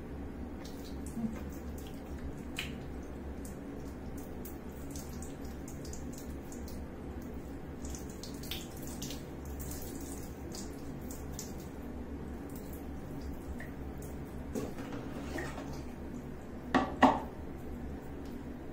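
Water poured from a plastic dipper trickling and splashing over a newborn monkey held over a plastic bucket, with scattered small drips and splashes. Two sharp knocks near the end.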